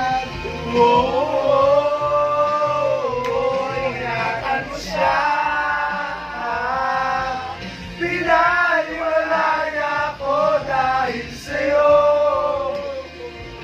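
A group of people singing together in long held phrases, with music under the voices.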